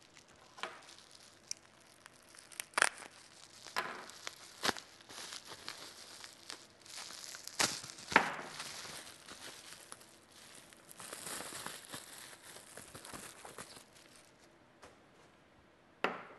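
Plastic packaging bag crinkling and rustling as a new microphone is unwrapped, with a few sharper snaps of the plastic.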